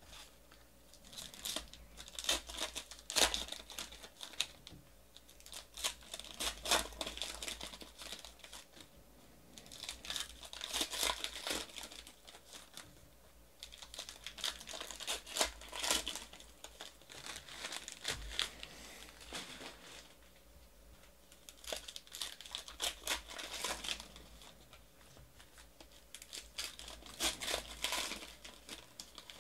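Wrappers of 2018 Panini Classics Football trading-card packs crinkling and tearing as they are ripped open by hand, in bursts every few seconds with quieter gaps between.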